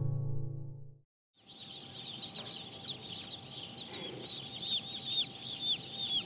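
Many Splash Rose Comb Bantam chicks peeping together: a dense run of short, high, arching peeps. It starts after a short silence about a second in, following the fading end of guitar music.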